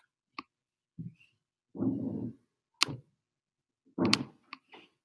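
Scattered sharp computer clicks and a few short dull knocks from handling a laptop, the loudest click coming a little before the three-second mark and a knock with a click about four seconds in.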